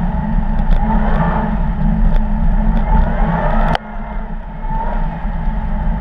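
Audi car's engine revving hard on an ice driving track, its pitch climbing twice, with a few sharp ticks over it. A little under four seconds in, the sound breaks off sharply and comes back quieter, then builds again.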